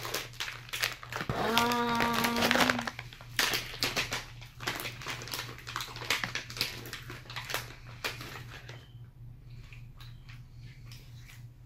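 Plastic snack pouch crinkling as a hand rummages in it, with a short hummed 'mm' about two seconds in. The crinkling dies away after about nine seconds.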